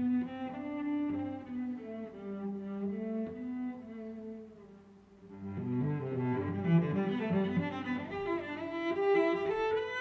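Background music: a slow, low bowed-string melody, cello-like, that dips quieter about halfway through and then swells again.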